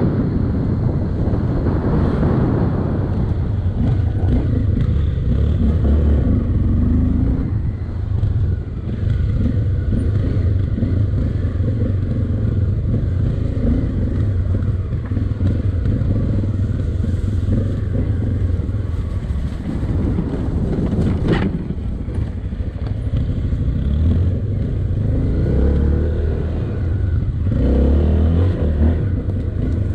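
Police motorcycle engine running as the bike rides over rough dirt and grass, its pace rising and easing. One sharp knock a little over two-thirds of the way through.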